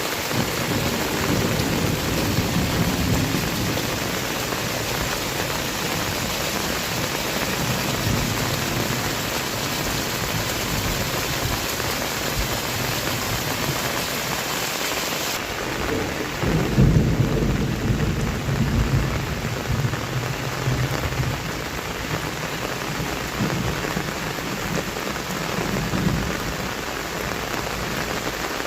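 Heavy rain falling steadily while thunder rumbles several times, the loudest, longest roll a little past halfway. The hiss of the rain turns duller just before that roll.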